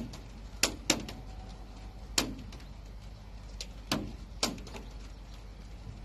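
Sharp knocks, about seven in six seconds at irregular intervals, each with a short ringing tail.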